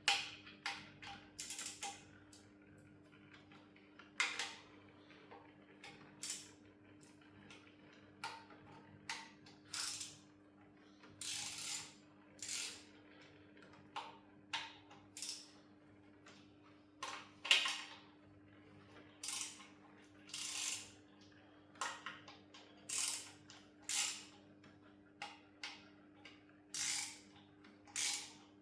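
Hand ratchet wrench clicking in short strokes, over and over with brief pauses, as bolts are worked loose during engine disassembly.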